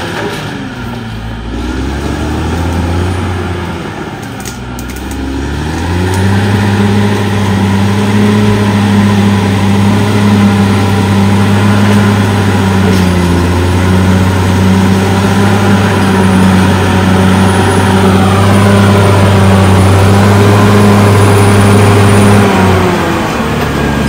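Caterpillar D6R XL bulldozer's diesel engine working as the blade pushes soil. Engine speed dips and wavers for the first few seconds, then runs high and steady, falling again just before the end.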